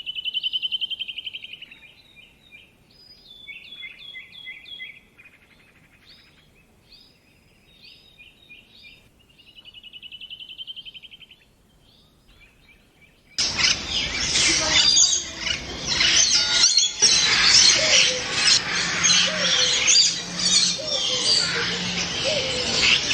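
Birds singing: one bird repeats short trilled phrases with pauses between them. About thirteen seconds in, the sound cuts abruptly to a louder, dense chorus of many birds chirping and calling over each other.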